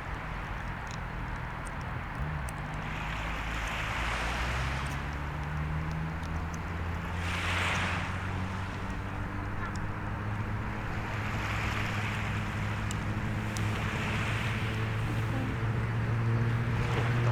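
Waves washing onto the shore in swells every few seconds over a low engine drone that rises slightly in pitch and grows louder, with scattered faint crackles from the bonfire.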